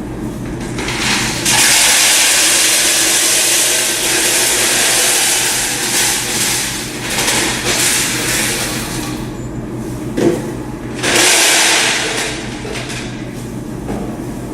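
Peanut and plain M&M candies being poured into a bulk vending machine canister: one long pour from about a second and a half in to about nine seconds, then a shorter second pour around eleven seconds, over a steady low hum.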